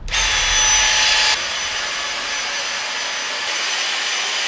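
Dyson cordless stick vacuum switched on and running with a steady high whine while vacuuming a wooden tabletop. A little over a second in, the level drops slightly and then holds steady.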